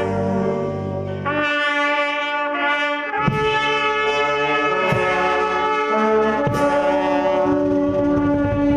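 Military brass band playing a slow piece, with trumpets and trombones holding long chords that change every two or three seconds. The chords stop near the end.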